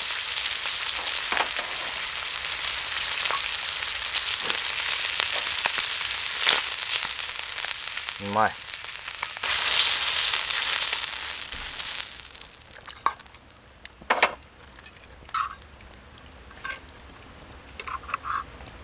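Meat sizzling on a hot iron griddle plate, a dense hiss with occasional taps and pops. The sizzle cuts off about two-thirds of the way through, leaving only scattered light clicks.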